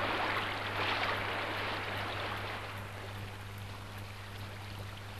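Rushing stream water, an even rush that slowly fades away, over a faint steady low hum.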